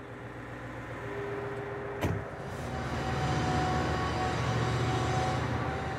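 Engine of a 600-horsepower self-propelled ship-section transporter running as the vehicle drives, a steady drone with a held tone that grows louder from about two seconds in. A single sharp knock about two seconds in.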